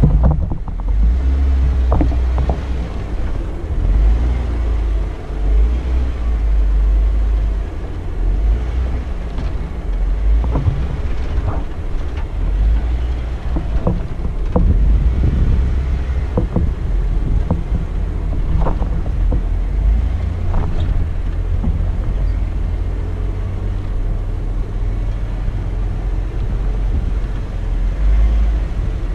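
Off-road Jeep crawling over slickrock: a steady low engine rumble, with scattered short knocks and clicks.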